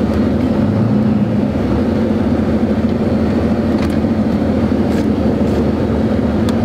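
1999 Dodge Ram's 5.9-litre Cummins inline-six turbodiesel running steadily with a low drone while the truck moves slowly, heard from inside the cab.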